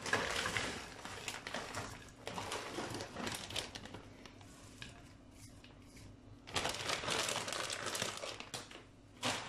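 A plastic bag crinkling and rustling as slices of kebab meat are shaken out of it into a non-stick frying pan, in several irregular bursts with short pauses between.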